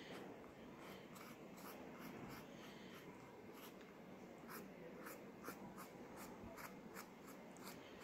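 Faint scratchy strokes of a wooden ice-cream stick dabbing and rubbing colour onto paper, about two strokes a second.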